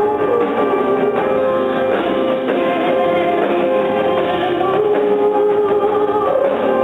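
Live rock concert music: a band playing, with guitar and a woman singing.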